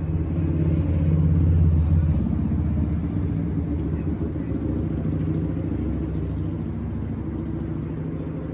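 Steady low rumble of a running vehicle, loudest about two seconds in and easing off slightly after.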